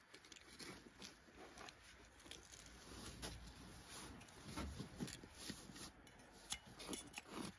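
Faint, scattered clicks and squishes of garlic cloves being crushed in a hand garlic press.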